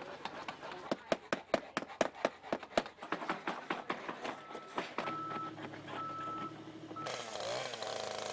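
Hand paint scrapers scraping peeling paint off weathered wood clapboard siding in quick repeated strokes, several a second. About seven seconds in, the small engine of a gas hedge trimmer starts running steadily.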